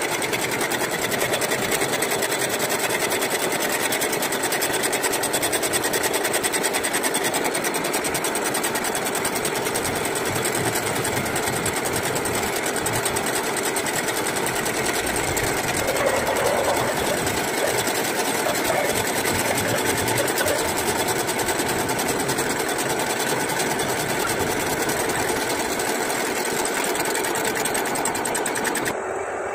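Milling cutter skimming the deck face of an engine block: a steady, rapid metallic chatter of the cutter on the metal.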